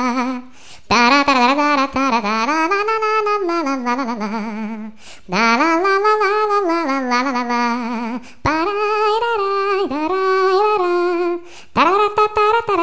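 A solo wordless melody with vibrato, sung or played in phrases of a few seconds broken by short pauses for breath.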